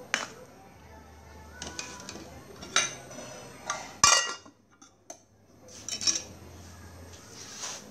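A metal ladle clinking against the side of an aluminium stockpot as the soup is stirred, then the aluminium lid set down on the pot with a loud metallic clang about four seconds in, followed by a few lighter clinks.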